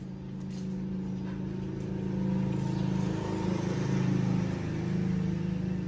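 A motor vehicle's engine running steadily off-screen, a low hum that slowly grows louder and then holds.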